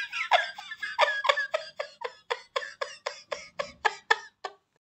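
High-pitched laughter: a long run of quick 'ha-ha' pulses, about four or five a second, growing fainter and stopping shortly before the end.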